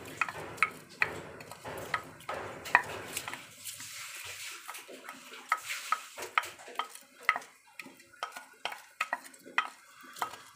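Dry jasmine rice being poured into a pot of broth, a steady hiss for the first few seconds, with many sharp clinks of cookware against the pot throughout.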